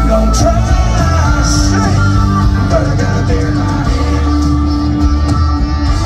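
Live country-rock band playing loudly through a concert sound system, with electric guitars and drums.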